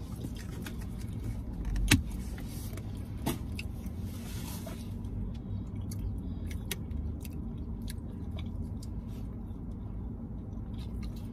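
Steady low car rumble heard inside the cabin, with small clicks and taps of eating and handling food, the sharpest about two seconds in.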